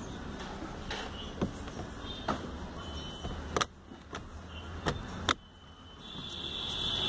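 Steering-wheel airbag module being pressed by hand into a VW Polo's wheel hub, about five sharp plastic clicks and snaps as it is pushed home on its press-fit clips, the last one near the end the loudest. A steady low hum runs underneath.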